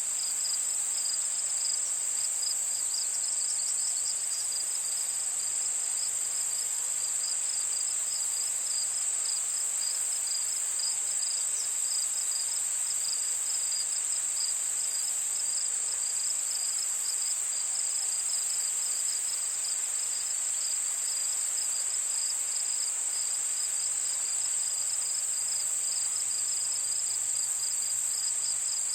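Steady chorus of insects: one continuous high, shrill trill with a quicker pulsing chirp just below it, unchanging throughout.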